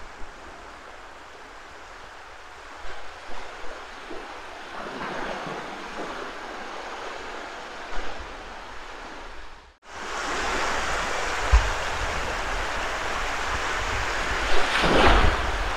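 Small waves breaking and washing up a flat sandy beach in a steady hiss, with wind gusting on the microphone in low thumps. About two-thirds of the way in the sound drops out for a moment, then comes back louder.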